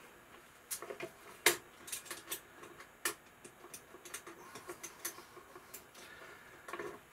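Short plastic and metal clicks and knocks as a D-cell battery holder is pushed back into a cassette recorder's battery compartment and the hinged metal compartment cover is closed, with sharp clicks about a second and a half in and again around three seconds.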